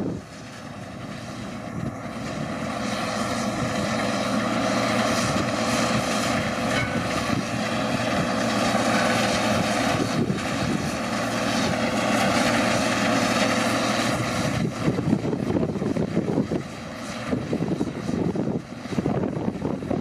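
Case International Axial-Flow 1660 combine harvester running while cutting barley: a steady engine and threshing drone that grows louder over the first few seconds. About three-quarters of the way through, wind buffets the microphone and the sound turns gusty.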